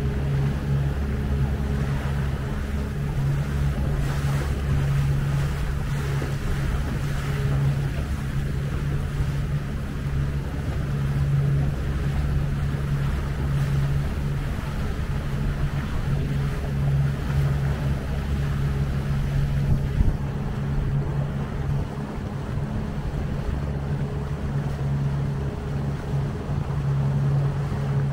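Outboard motor of a Tahoe T16 boat running steadily under way, a low even hum, with water and wind rushing past.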